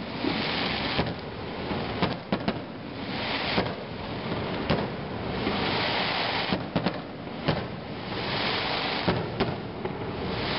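Fireworks display with aerial shells bursting: sharp bangs every second or so, some in quick clusters, over a continuous noisy rushing hiss.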